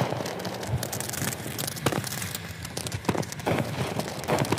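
Consumer firework cake firing: a run of sharp pops and bangs at irregular intervals as shells burst overhead, over a dense fizzing crackle.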